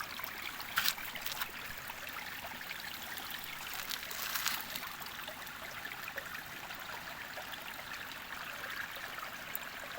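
Steady rushing of running water, like a stream, with two brief louder swells, one about a second in and one around four seconds in.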